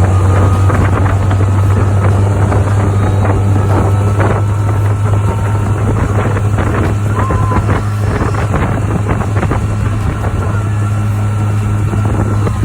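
20 hp EFI Mercury outboard running steadily with the boat underway, its low drone constant throughout, with wind buffeting the microphone.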